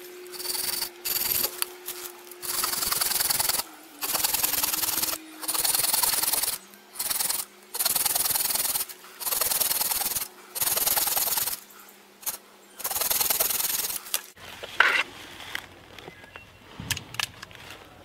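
Red-handled folding saw cutting through a thin wooden pole in rasping back-and-forth strokes, about a dozen of them with short pauses between. The sawing stops about 14 seconds in, followed by a single sharp knock and quieter handling noises.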